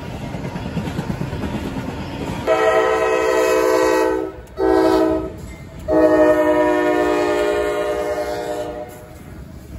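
Freight train rumbling past on the rails, then from about two and a half seconds in a locomotive air horn sounds three blasts: long, short, then a longer one that ends about a second before the close, leaving the rumble of the passing train.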